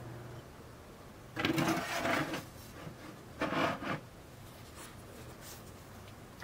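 Two short bursts of rubbing and scraping from handling baking things, with one light click near the end.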